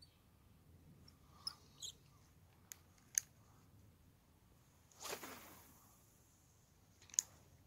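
Lure cast with a spinning rod and reel: a few faint clicks of the reel being handled, a swish about five seconds in as the rod is cast, and a single sharp click near the end.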